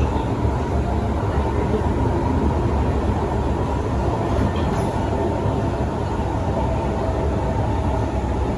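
Inside a Kawasaki C151 metro car running between stations: a steady rumble of wheels and running gear, with a faint steady motor whine above it.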